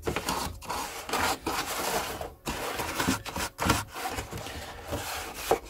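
A toothbrush scrubbing the moulded crevices of a hollow plastic playset base, irregular scratchy strokes with short pauses.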